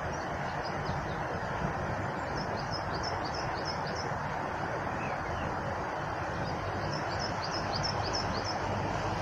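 Steady rushing of flowing water, with birds singing over it in two quick runs of high chirps, about two seconds in and again near seven seconds.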